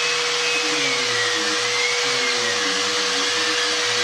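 DeWalt 5-inch random orbit sander running with 120-grit paper against a wooden cabinet, a vacuum hose attached to it for dust extraction. The noise is steady, with a high whine that wavers slightly as the sander is pressed and moved.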